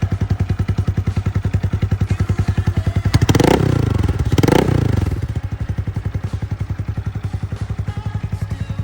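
Honda Grom's single-cylinder four-stroke engine idling through a newly fitted low-mount aftermarket exhaust, with an even, pulsing beat. It is blipped twice, about three seconds in and again about a second later, the revs rising sharply and dropping straight back to idle.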